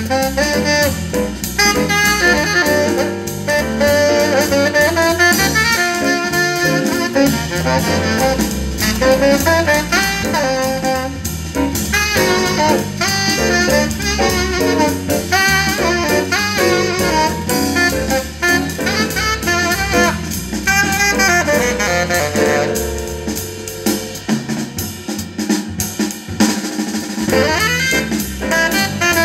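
Jazz with saxophone and drum kit played back through a pair of 1991 Infinity RS 1001 two-way bookshelf speakers with Polyphenite tweeters, heard through a microphone in the room during a listening test.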